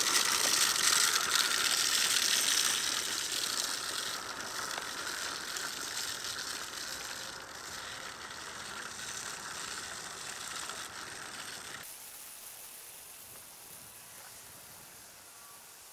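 ECHO RB-60 push broadcast spreader's gear drive and spinner whirring and ticking as it is pushed along throwing rock salt, loudest at first and fading steadily as it moves away; the brighter hiss drops off suddenly near the end.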